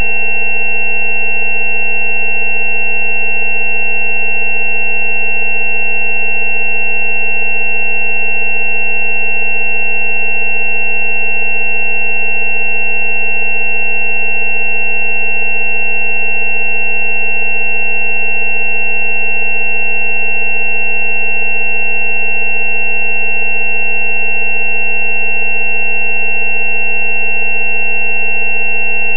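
Synthesized frequency-therapy tone track: a steady low 190 Hz tone, the 'healing frequency' for dental abscess, layered with several higher steady tones, the loudest a thin high whine.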